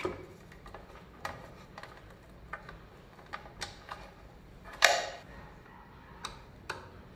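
Scattered light clicks and knocks of plastic and metal parts being handled while an electric golf trolley's motor assembly is taken apart. One sharper, louder knock comes about five seconds in.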